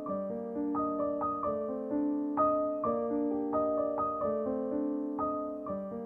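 Background music: a piano playing a melody of struck notes, about two notes a second, each ringing on until the next.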